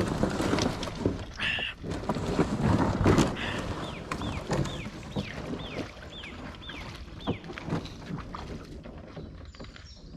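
Loaded canoe being pushed off and paddled: water noise with knocks against the hull, loudest in the first few seconds. In the middle a bird calls a run of about eight quick falling notes.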